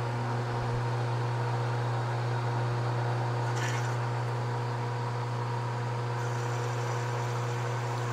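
Metal lathe running steadily, its motor and spinning three-jaw chuck giving a constant hum, while a tool turns down a delrin rod. A brief hiss comes about three and a half seconds in.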